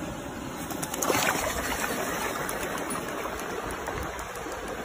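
Flowing stream water running over rocks, a steady rushing that grows louder about a second in.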